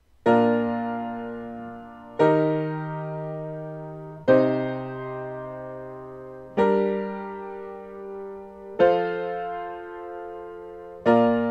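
Piano playing slow four-voice block chords in B-flat major, six in all, one about every two seconds, each struck and left to ring down: I, IV, ii, vi, V, I.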